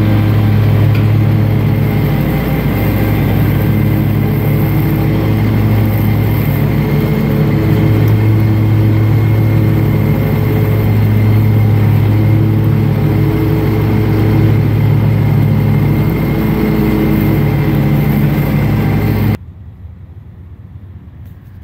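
Scag zero-turn riding mower's engine running steadily at mowing speed, a loud even drone, until it cuts off abruptly near the end and leaves only a much quieter background.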